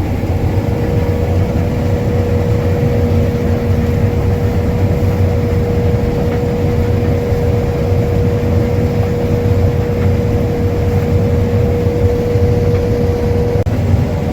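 Case IH 6140 combine running while harvesting soybeans: a steady heavy drone with a constant whine on top, which cuts off near the end while the drone carries on.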